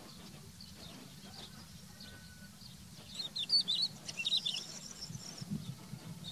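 Crested lark singing: faint scattered chirps, then about halfway through a louder run of quick, clear whistled notes sliding up and down in pitch, easing off near the end.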